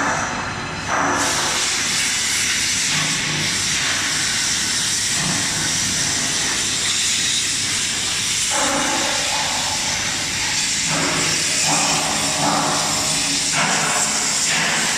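Steady, loud hissing noise of factory-hall machinery, with patches of lower rushing noise that come and go.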